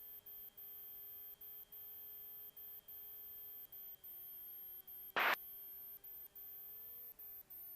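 Light-sport airplane's engine heard as a steady droning tone with overtones through the cockpit intercom during the landing, its pitch rising briefly about seven seconds in. A single short sharp burst of noise, the loudest sound, cuts in about five seconds in.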